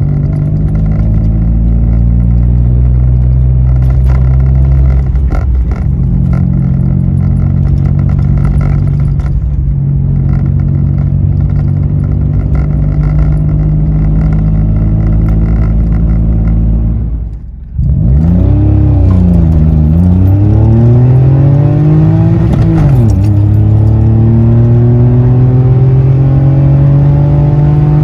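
Citroën C1 engine and nearly straight-piped exhaust, with the DB killer baffle removed, heard inside the cabin: a deep, droning note at steady speed. About two-thirds through, the sound dips briefly, then the car accelerates hard and the engine note rises and falls several times before climbing steadily.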